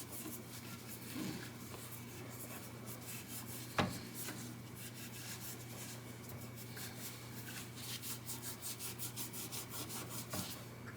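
A damp cloth rubbing back and forth in quick, even strokes, scrubbing grime off guitar parts. A single sharp knock comes about four seconds in.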